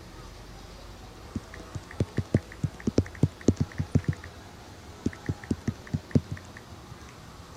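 A run of soft knocks and small ticks, about three to four a second, in two bursts with a short pause between: handling noise from objects being touched close to the microphone.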